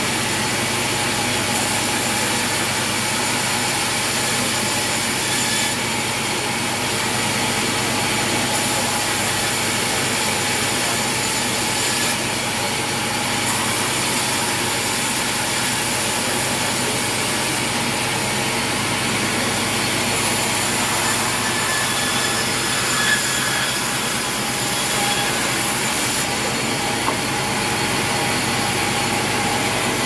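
Large sawmill band saw running steadily and cutting lengthwise through timber planks as they are fed through, a continuous mix of machine running and blade-in-wood noise.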